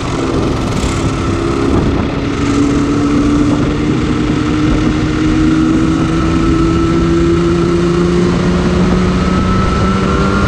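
Yamaha RZ250's liquid-cooled parallel-twin two-stroke engine running under way on a ride. The note changes briefly about two seconds in, then climbs slowly and steadily as the bike gathers speed.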